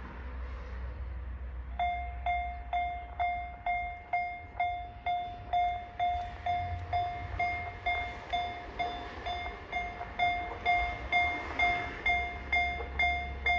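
Level crossing warning alarm starts about two seconds in and strikes about twice a second, each strike a single ringing tone that fades quickly. It is an unusual-sounding crossing alarm. A low steady rumble runs underneath.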